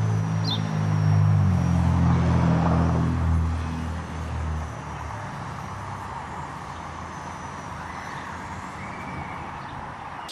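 Walkera 4#3B micro RC helicopter's rotor and motor humming in flight, strongest for the first few seconds and then fading away, over steady wind noise on the microphone.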